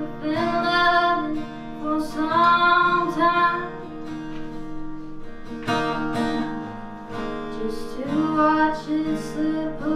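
A woman singing to her own acoustic guitar. Her sung phrases come in bursts of a second or two, with the guitar carrying on alone in between.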